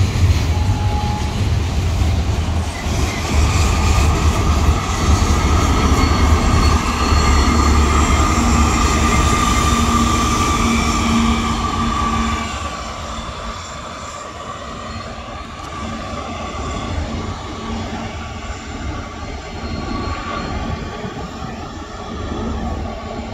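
A loaded steel-coil freight train rolls past on a curve with a low rumble, its wheel flanges squealing in steady high tones. About twelve seconds in, the rumble drops off sharply and the sound stays quieter, with faint squeals.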